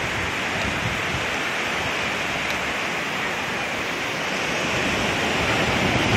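Ocean surf washing up a sandy beach: a steady rushing hiss of breaking and receding waves, growing a little louder near the end.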